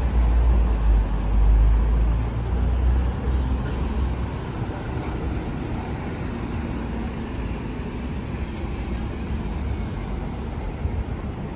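City road traffic: a steady wash of passing vehicles, with a heavy low rumble for the first few seconds that then eases to a steadier hum.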